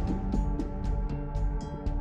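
Background music with a steady electronic beat and sustained synth tones.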